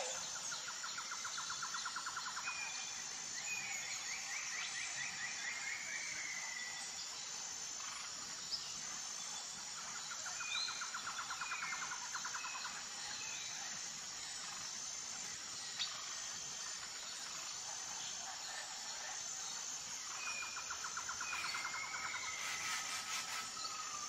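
Birds calling outdoors: short rattling trills that come back about every ten seconds, mixed with brief chirps and whistled glides, over a steady high-pitched insect buzz. Two faint clicks partway through.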